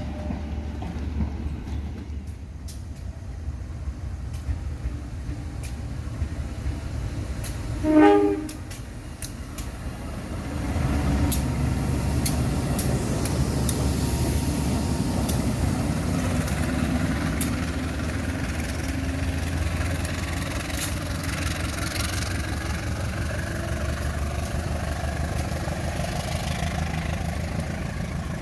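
Train running through a rail junction, a steady low rumble; about eight seconds in, a short single train horn blast, the loudest sound. From about ten seconds in, a louder passing train with repeated sharp clicks of wheels over the rails.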